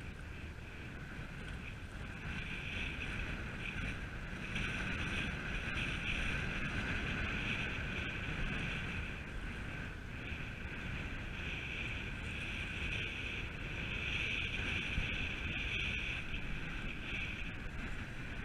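Wind buffeting the microphone, with choppy sea water washing against the jetty rocks. The wash swells twice and eases again.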